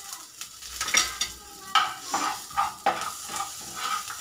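A spatula stirring and scraping spices frying in ghee in a non-stick frying pan, in a series of sharp strokes over a steady sizzle.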